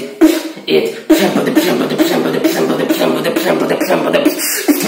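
Solo human beatboxing into a smartphone held right at the mouth. A few separate hits come in the first second, then from about a second in a continuous fast run of bass and percussive mouth sounds.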